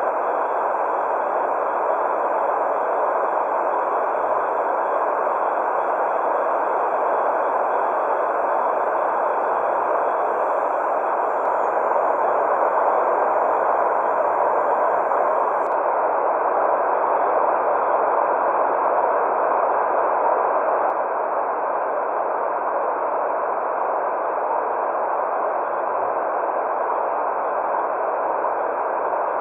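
Steady, unbroken white-noise hiss, neither deep nor shrill.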